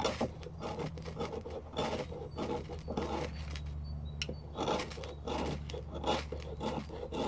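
Spine of a ROOT 2.0 bushcraft knife scraped hard down a ferrocerium rod in repeated rasping strokes, about one or two a second, throwing sparks onto wood shavings to light them.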